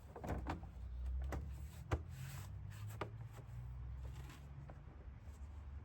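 Scattered light clicks and knocks of plastic engine parts being handled as the intake plenum is pushed onto its rubber grommets and its hoses are refitted, over a low steady rumble.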